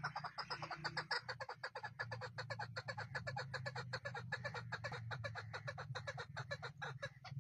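Chukar partridge calling: a fast, steady run of dry clucks, about eight a second, over a low steady hum.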